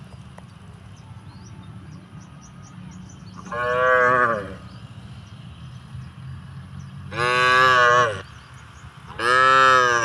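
Cattle mooing three times, each call about a second long, the last two close together near the end.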